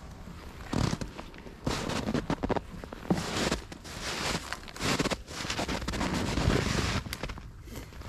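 Footsteps crunching through snow: a string of short, uneven crunches as someone walks up to a burrow and settles beside it.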